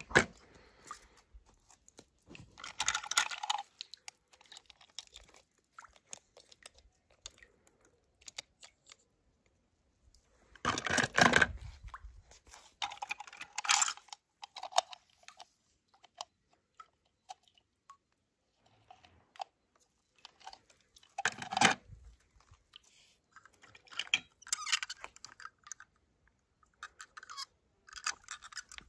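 Intermittent crunching and rustling handling noises with scattered clicks, rising into several short louder bursts, the loudest about a third of the way in and again past the middle.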